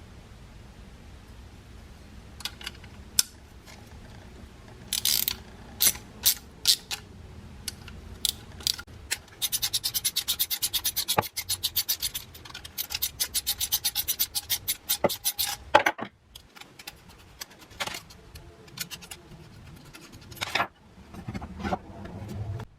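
Hand wrench work on the water heater's burner tubing fittings: scraping and rubbing with scattered sharp clicks, and two runs of rapid, even clicking about ten a second in the middle.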